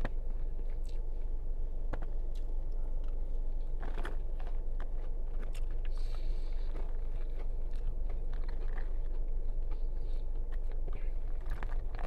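A person chewing and biting food close to the microphone, with short wet smacks and clicks scattered through it. A steady low hum runs underneath.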